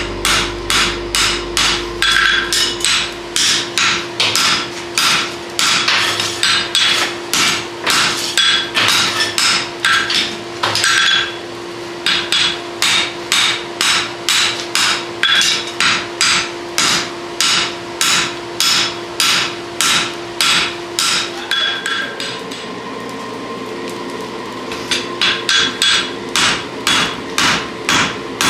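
Hammers striking a red-hot steel draft horseshoe on an anvil, a steady run of ringing blows at about two a second. The blows stop briefly twice, the second time for about three seconds near the end with only a steady hum beneath, then start again.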